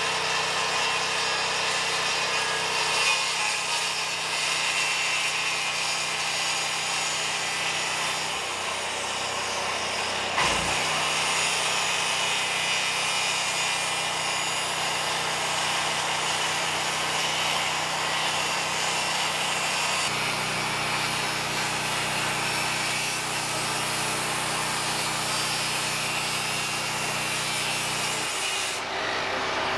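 Electric power tool running continuously against pine wood, a steady grinding hiss over a motor hum. The motor's note shifts a few times, and there is a single knock about ten seconds in.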